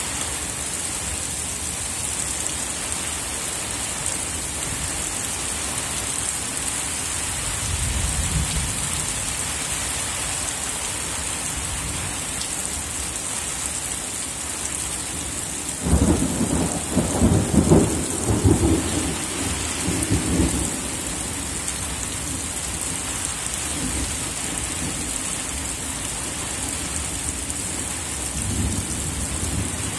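Steady rain hissing down throughout, with a sudden crack of thunder about halfway through that rolls on for several seconds; fainter low rumbles come about eight seconds in and near the end.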